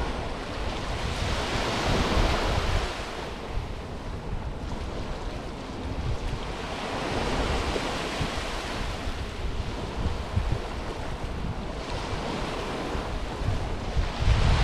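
Small Mediterranean waves washing up on a sandy beach, the wash swelling and fading three times, about five seconds apart. Wind buffets the microphone with low rumbles underneath.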